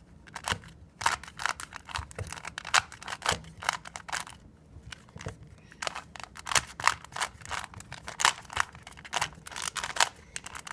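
A 3x3 Rubik's Cube being turned quickly by hand, its plastic layers clicking in quick irregular runs of several clicks a second, with a brief lull about four seconds in; the cube is being scrambled before a speed solve.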